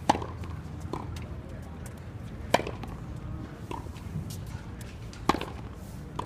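Tennis balls struck with racquets during a volley rally: three sharp, loud hits about two and a half seconds apart, with fainter hits in between.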